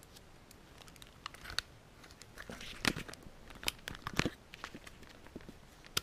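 Rummaging through bagged junk by hand: scattered crinkling of plastic bags with small clicks and knocks from objects being moved, the sharpest of them about three and four seconds in.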